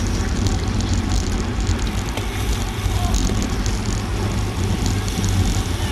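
Wind buffeting the microphone of a bike-mounted camera riding in a racing pack at about 20 mph, a steady heavy rumble with tyre noise on the road. Irregular light clicks from the bicycles run through it.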